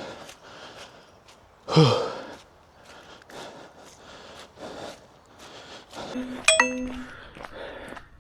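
A runner's footsteps, with a loud breathy exhale falling in pitch about two seconds in, and a short bright electronic ding near the end.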